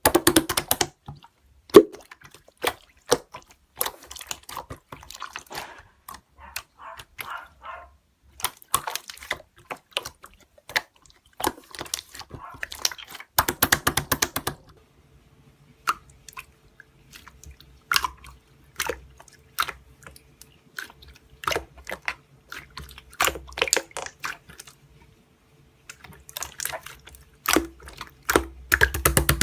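Slime being squeezed, poked and stretched by hand: an uneven run of sticky clicks, pops and squelches, with a denser crackly stretch about halfway through.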